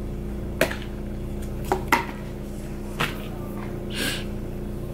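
Lid of a takeout food cup being pried off by hand: a few light clicks and snaps. A short sniff about four seconds in, all over a steady low hum.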